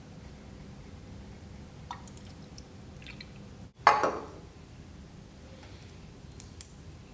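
A sudden splash of liquid about four seconds in, fading over half a second, with a few faint clicks and taps before and after it.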